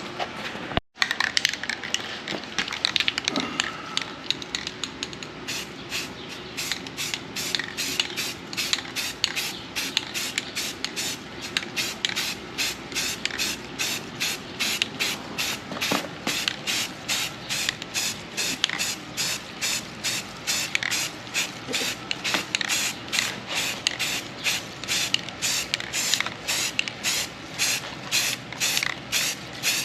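Aerosol can of brown camo spray paint hissing in short, quick bursts, about two or three a second, as a coat of paint goes on.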